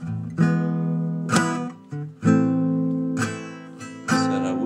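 Acoustic guitar strumming chords, about one strum a second, each chord left to ring.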